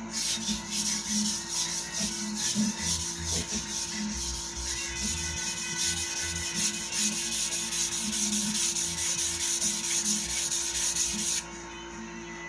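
Large sujihiki knife blade stroked repeatedly along a 1000-grit whetstone, a rhythmic scraping rub of steel on stone that raises a burr along the edge. The strokes stop about a second before the end.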